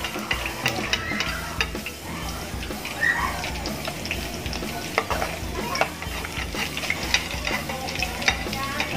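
Milkfish pieces frying in hot oil in a wok, a steady sizzle with frequent sharp pops. A metal spatula scrapes and taps against the pan as the fried pieces are lifted out.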